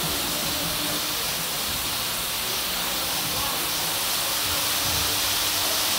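Artificial water curtain pouring down, with a steady hiss of falling and splashing water.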